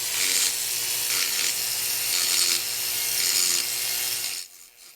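Dremel rotary tool grinding down curb-rash gouges on an aluminum alloy wheel. It makes a steady high-pitched grinding hiss that swells roughly once a second, then cuts off near the end.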